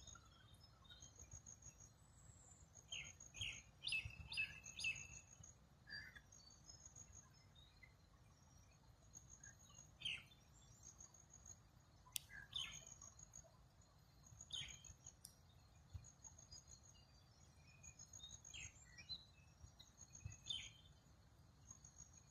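Wild birds calling faintly: scattered short chirps, with a cluster about four seconds in, over a thin, rapid high trill that recurs every few seconds.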